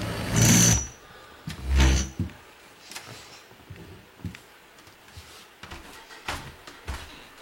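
Moving boxes being shifted on the floor: two loud scraping thuds, about half a second each, then scattered light knocks.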